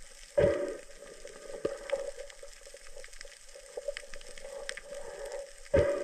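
Underwater sound picked up by a camera housing: a steady low hum with scattered faint clicks, broken by two loud, muffled thumps, one about half a second in and one near the end.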